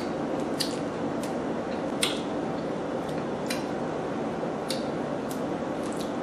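Cooked lobster shell cracking and snapping as it is pulled apart by hand: sharp cracks scattered irregularly, the loudest about two seconds in, over a steady background noise.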